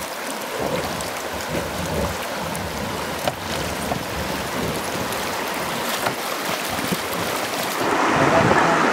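River water rushing through shallow riffles, a steady noise with a few faint knocks, getting louder near the end.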